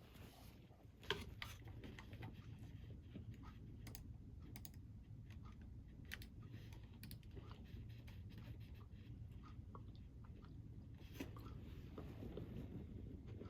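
Faint chewing of a crunchy snack: scattered crisp crunches, strongest about a second in and again near the end, over a low steady rumble.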